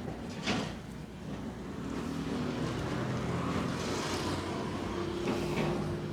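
Roadside traffic: a motor vehicle's engine running close by over a steady low hum, growing louder about two seconds in. Two short sharp sounds stand out, one near the start and one near the end.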